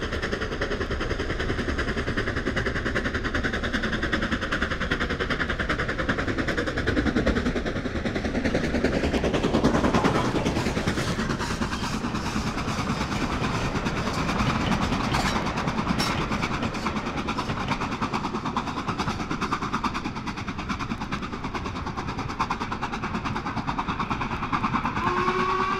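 A train running past on the rails: a steady, continuous rumble with a fine rapid rattle, swelling about ten seconds in.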